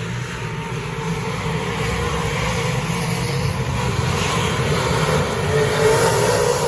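Vehicle engine running with a steady low rumble, its tone rising slightly and getting gradually louder.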